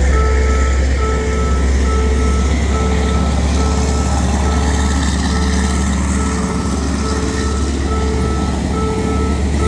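A railway level-crossing warning alarm beeping evenly about once a second over the steady low rumble of a passing train.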